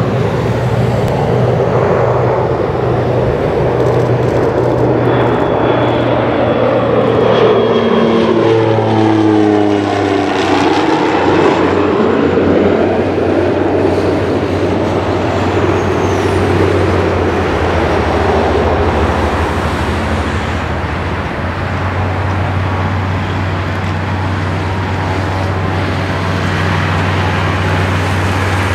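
Beechcraft UC-12F Huron twin-turboprop passing close by on final approach. Its engine and propeller drone drops in pitch as it goes past about ten seconds in, then settles into a steadier, duller drone as it draws away to land.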